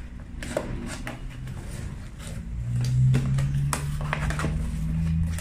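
A cardboard box being opened and handled: scattered crinkles, taps and rustles of the flaps and the plastic-wrapped parts. Under them runs a low hum that grows louder about halfway through.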